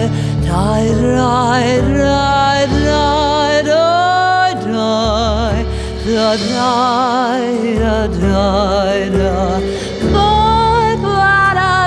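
A woman singing a slow, ornamented melody with strong vibrato, over sustained low instrumental notes.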